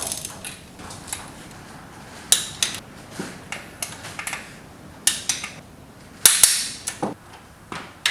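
Sharp metallic clicks and clacks at irregular intervals from a torque wrench and socket as the T56 transmission's bolts are torqued down, with the longest, loudest clack a little past six seconds in.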